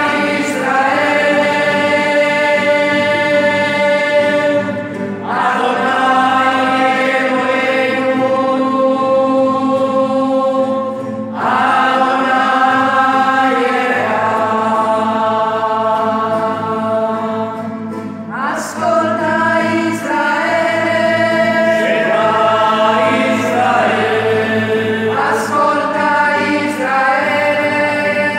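A small mixed group of church faithful, women and men, singing a hymn together in long, held phrases with guitar accompaniment. The clear voices echo through the church.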